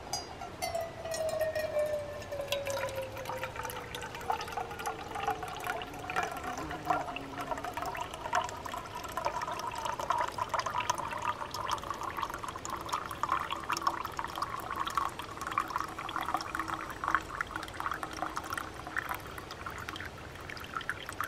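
Boiled coffee poured from a stainless camp pot through its spout strainer into a stainless steel mug: a steady trickling pour with splashing as the mug fills. A ringing tone in the pour slides down over the first few seconds.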